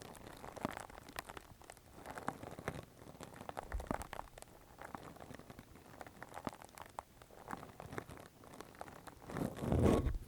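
Close-miked ear-cleaning ASMR: a dense run of crackly scratches and small clicks, with a louder muffled rubbing swell just before the end.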